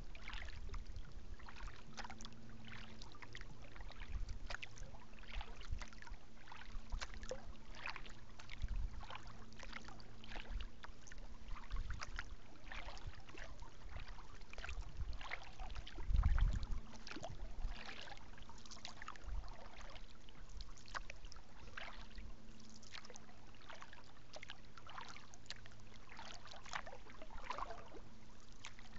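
Kayak paddling: water splashing and dripping off the paddle blades in an uneven patter, with low rumbling wind on the microphone and one louder low thump about 16 seconds in.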